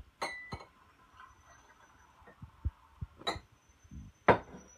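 Glass cups clinking and knocking on a kitchen counter: a few sharp taps, the loudest near the end, some leaving a thin ringing tone that fades over a second or so.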